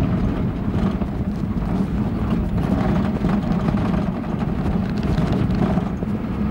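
Engine and tyre noise of a safari truck driving along a dirt track, heard from inside the cab: a steady low drone with no change in speed.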